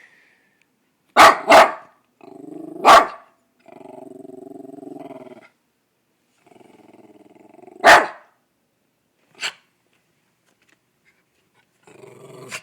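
Small dachshund-poodle mix dog barking: two quick sharp barks about a second in, another near three seconds and one near eight seconds. Between the barks come low growls, each held for a second or two.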